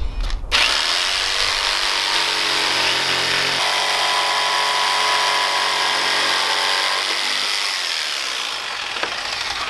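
Power drill running steadily as it bores corner holes through a wood panel for a cup-holder cutout. It starts about half a second in, and its sound shifts a few seconds later.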